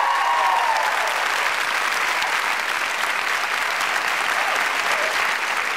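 Studio audience applauding steadily, with a few cheers in the first second.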